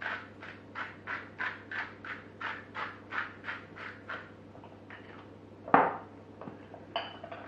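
Hand-twisted seasoning grinder being turned over a bowl of vegetables, a quick run of short grating strokes at about four a second, lasting four seconds or so. Near the end the grinder is set down on a wooden worktop with one sharp knock.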